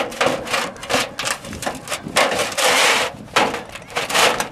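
Sheet-metal roof flashing scraping and flexing against asphalt shingles as it is worked into place and slid up under them, in a string of irregular scrapes and rustles.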